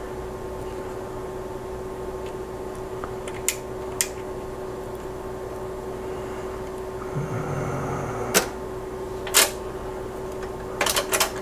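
Sharp clicks of front-panel switches and knob detents being worked on a Tektronix 485 oscilloscope: single clicks spaced a few seconds apart, then a quick run of clicks near the end, over a steady electrical hum.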